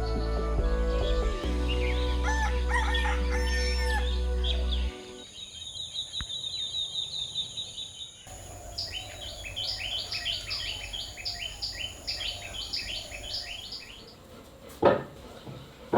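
Background music with sustained notes for about five seconds, then birds calling with rapid repeated high chirps. A single sharp knock comes near the end.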